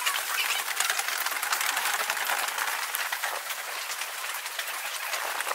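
Fast-forwarded footsteps and station bustle, sped up into a dense, high-pitched chatter of rapid clicks and hiss with no low end.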